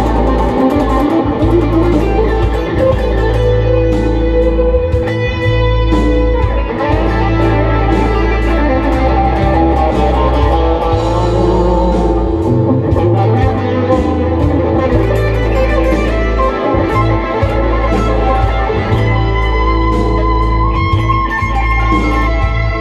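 Gibson Les Paul electric guitar through a Mesa amplifier playing an improvised lead over a backing track with bass and drums, with some notes held and sustained.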